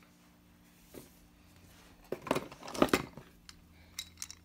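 Wooden toy train locomotives being handled and set down on the floor: a quick run of light wooden clacks about two seconds in, then a few single clicks.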